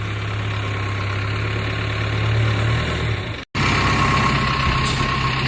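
A vehicle engine idling steadily with a low hum. It cuts out abruptly for a moment about three and a half seconds in, then carries on.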